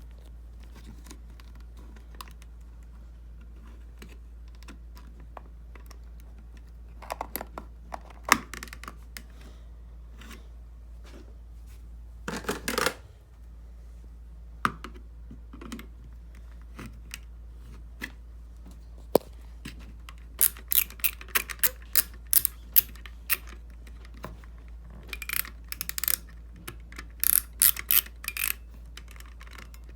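Clicks and clacks of a small homemade fire alarm pull station being handled: scattered single clicks, a short rattle about twelve seconds in, then quick runs of clicking in the second half, over a steady low hum.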